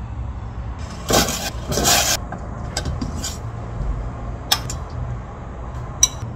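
Liquid going into a frying pan of tteokbokki sauce in two short splashing bursts, then metal tongs stirring the sauce, with sharp clicks and a ringing metallic clink against the non-stick pan. A steady low hum runs underneath.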